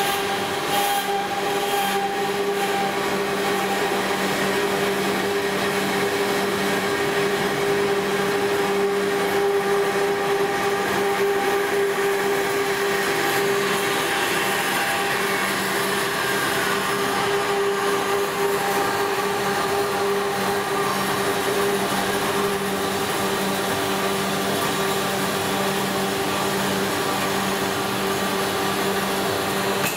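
Asada Beaver 4 Eco band saw running steadily as its blade cuts through a 2-inch pipe: a constant motor hum under the hiss of the blade working through the metal, with a faint tone sliding down in pitch about halfway through.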